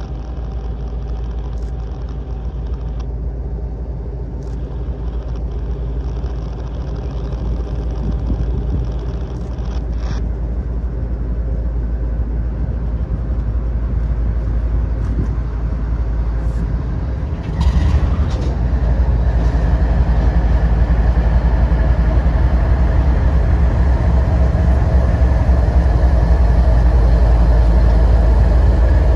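CSX GE Evolution-series (GEVO) diesel-electric locomotives running at slow speed as they pull a freight into the yard, a steady low engine rumble that grows louder as they approach, with a sudden step up in loudness a little past halfway.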